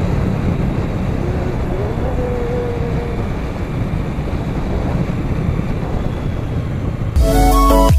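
Motorcycle engine and wind noise while riding at a steady speed. Electronic music cuts in abruptly about seven seconds in.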